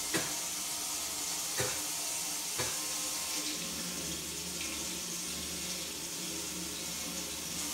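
Kitchen faucet running steadily into a sink, the water noise starting abruptly. There are two faint knocks in the first few seconds.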